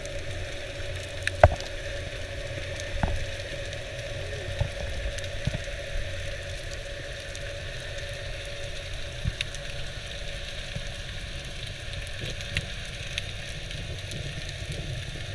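Underwater ambience: a steady low rumble and hiss with a faint steady hum, scattered small clicks and crackles, and one sharper click about a second and a half in.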